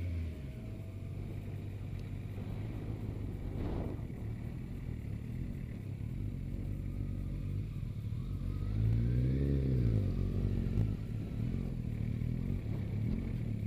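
Motorcycle engine heard from the rider's seat, running at low revs as the bike rolls slowly. About nine seconds in the revs rise and fall once, the loudest part, before it settles back to a low idle-like pull as the bike slows. There is a short knock about four seconds in.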